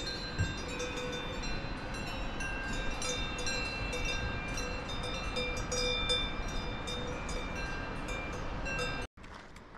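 A train running: a steady rumble with several sustained whining tones and frequent short clicks, cut off abruptly near the end.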